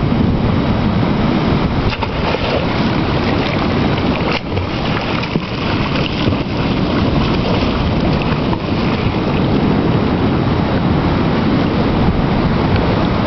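Steady loud rushing of wind buffeting the microphone, with swimmers splashing in the water.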